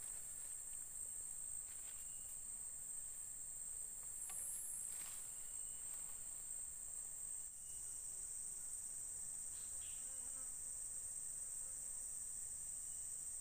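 Steady high-pitched insect chorus, a continuous shrill drone, with a few faint short chirps over it.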